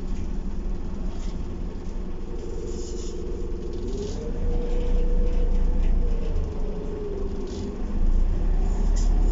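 Optare Solo single-deck bus heard from inside the saloon, its diesel engine running with a steady low rumble as it gets under way. About four seconds in, a whine rises in pitch and gets louder as the bus accelerates, holds, then falls back, with a few light rattles from the interior fittings.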